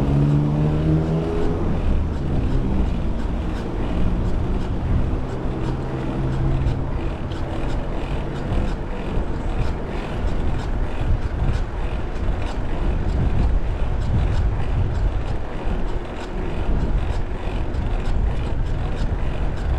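Wind rumbling on the camera's microphone while riding a mountain bike alongside traffic, with a motor vehicle's engine rising slightly in pitch over the first second or so. Through it runs a regular light ticking from the bike's brake pad rubbing on the disc rotor.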